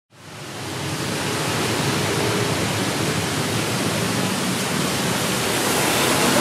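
Busy street traffic noise, a steady rush of passing vehicles that fades in over the first second and swells slightly near the end as a car passes close by.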